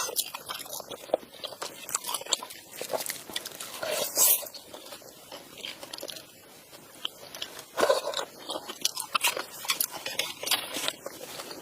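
A person eating duck close to the microphone: steady irregular biting and chewing with crunches, the loudest bites about four and eight seconds in.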